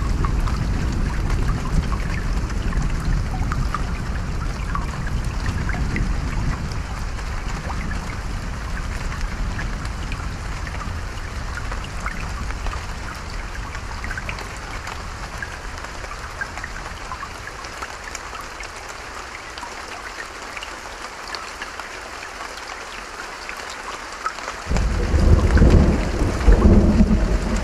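Stream running with a patter of rain drops, under a rolling thunder rumble that slowly fades away. Near the end a new peal of thunder breaks in suddenly and loudly.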